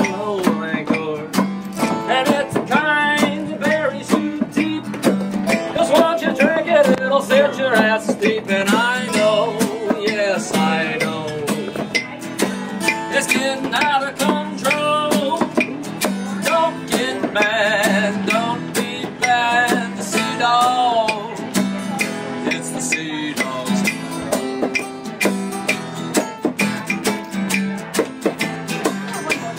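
A band song: strummed acoustic guitar with a singing voice carrying the melody.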